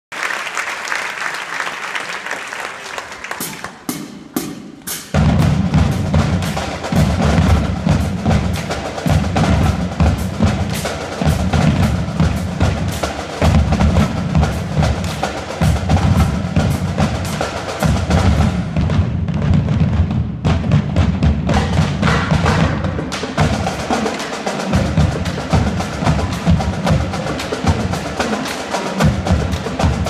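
A marching drumline plays a fast percussion cadence. A few sharp stick clicks come about three to four seconds in. From about five seconds the full line plays: bass drums beat out a heavy low pattern under rapid snare rhythms and rimshots.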